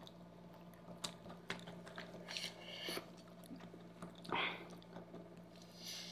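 Soft chewing of pasta, with a few light clicks and short wet mouth noises.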